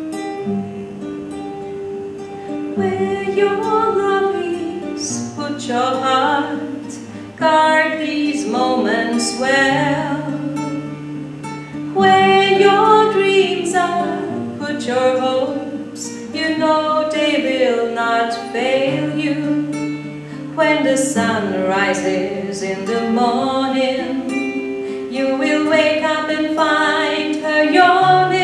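Woman singing a slow song to a classical guitar accompaniment; the guitar plays alone at first and the voice comes in about three seconds in.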